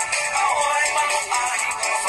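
Music playing steadily, thin-sounding with little bass.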